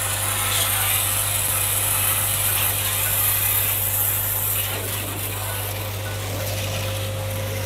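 Btali BT 1000 electric pressure washer running: its induction-motor pump hums steadily while the high-pressure water jet hisses against a car's bodywork. The hiss eases a little about five seconds in.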